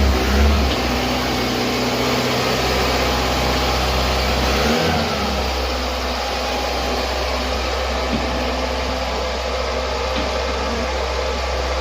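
1986 Ford Escort Mk3's four-cylinder petrol engine idling steadily on a cold start, with a brief dip in its hum about five seconds in.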